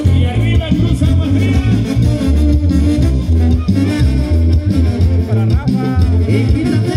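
Loud Latin American dance music with a steady, repeating bass beat, played for a zapateado dance.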